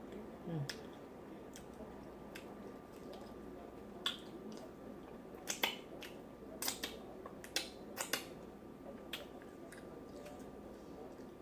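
Close-miked mouth smacks and chewing clicks from someone eating a seafood boil: about ten short, sharp wet clicks at irregular intervals, bunched together in the middle of the stretch.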